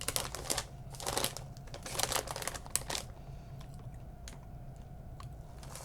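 Plastic snack bags rustling and crinkling as they are handled, in short clusters over the first three seconds, then a few light clicks.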